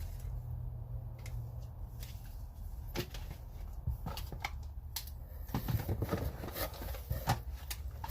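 Packaging and a small tool case being handled: rustling and a run of light clicks and taps, sparse at first and busier in the second half, over a steady low hum.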